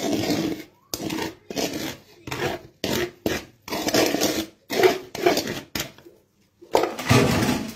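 Hard, toasted flatbread being grated into crumbs: about ten rasping, scraping strokes with a short pause about six seconds in.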